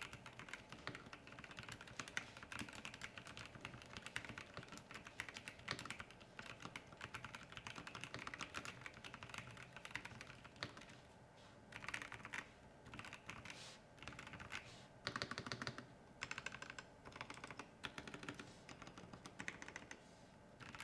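Keychron V5 Max mechanical keyboard with Gateron Jupiter Red linear switches being typed on: a fast, continuous patter of keystrokes that, about halfway through, breaks into short bursts of typing separated by brief pauses.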